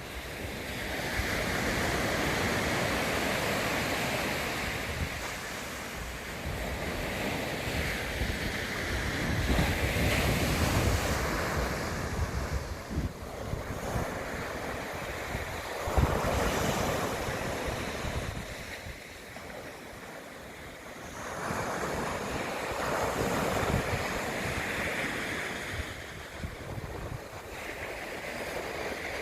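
Sea waves breaking and washing onto the shore in slow surges, with wind buffeting the microphone. A brief thump about halfway through.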